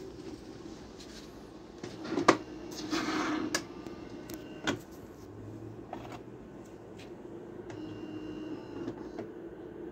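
Philips EP2224 automatic espresso machine finishing a shot: a steady hum with sharp clicks and a short mechanical whir about three seconds in. Near the end the glass is handled and rings faintly as it is lifted off the drip tray.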